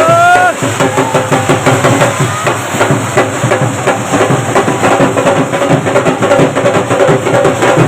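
Loud music with a fast, dense drum beat, and a pitched voice sliding upward near the start.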